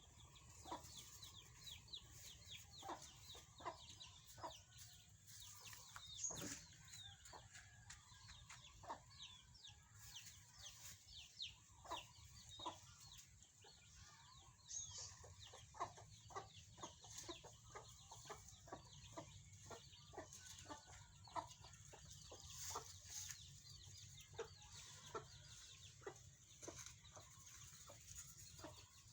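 Chickens clucking, faint: a busy run of short calls, several a second, with a few louder calls standing out.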